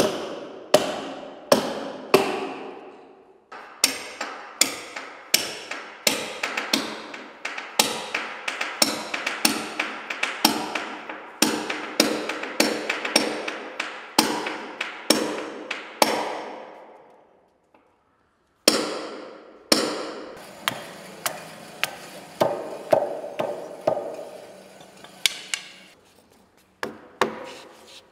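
Hand hammer striking repeatedly into the timber hull of a wooden boat under repair, driving fastenings, each blow sharp with a short ring, about two a second. The blows stop briefly about two-thirds through, then resume faster.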